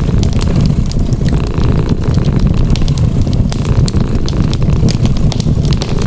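A cat purring close up, a steady low rumble, layered over a wood fire crackling with frequent sharp, irregular pops.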